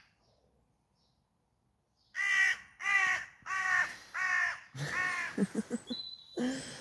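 A crow cawing five times in quick succession, starting about two seconds in: harsh calls roughly half a second apart. Lower, softer vocal sounds follow near the end.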